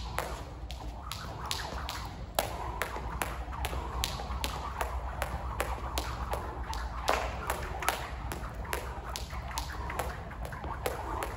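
A jump rope skipped on a wooden gym floor, the rope slapping the floor in a steady rhythm of about three sharp ticks a second.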